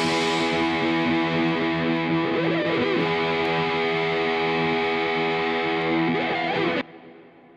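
Background rock music: a distorted electric guitar chord held and ringing steadily, then cut off sharply near the end and fading away.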